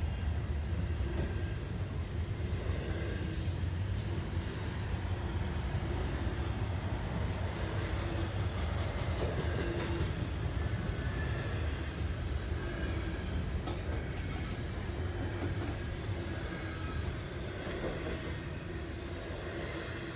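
CSX freight train rolling past: a steady low rumble of cars and wheels on the rails, with a few light clicks, easing off slightly near the end.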